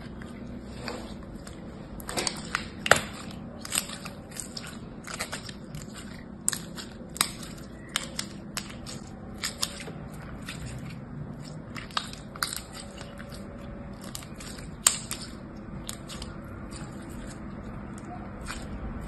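Translucent yellow-green slime squeezed and kneaded in the hands, giving irregular sharp clicks and pops, loudest about three seconds in and again near fifteen seconds.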